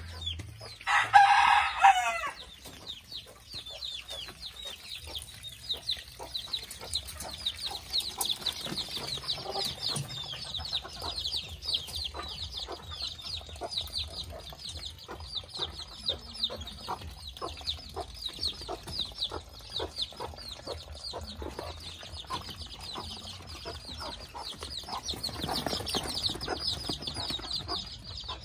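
Vietnamese gà tre bantam chickens: a short rooster crow about a second in, the loudest sound, followed by constant high-pitched peeping of chicks with occasional clucks.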